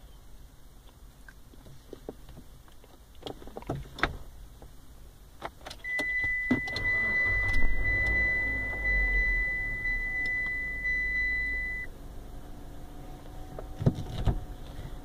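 A few clicks, then a car engine starting: a low rumble that settles into a quieter steady hum, with a steady high beep held for about six seconds over the start. Two sharp clicks come near the end.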